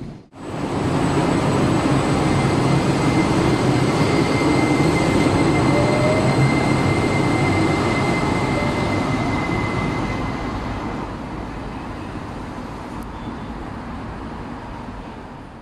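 A tram pulling away from the stop, its IGBT-VVVF traction inverter (Times Electric) whining over wheel rolling noise. A steady high whine stops about two-thirds of the way through, a fainter tone rises in pitch as the tram gathers speed, and the whole sound fades as it pulls away.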